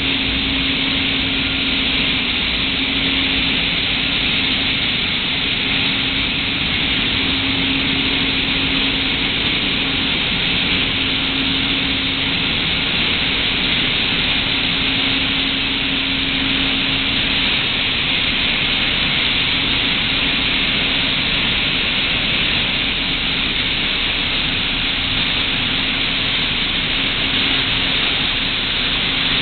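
Steam plant boiler room machinery running: a loud, steady rushing noise with a constant low hum underneath.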